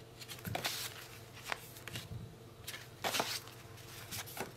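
Stiff paper journaling cards being flipped through by hand, a soft papery flick or slide each time a card is moved, several times, the clearest about three seconds in.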